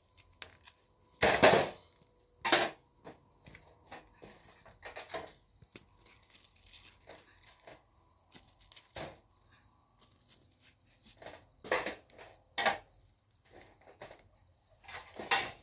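Metal kebab skewers scraping and clinking against a steel tray as grilled meat is slid off them onto flatbread, with bread being torn. The scrapes and clinks are short and irregular, the loudest about a second in.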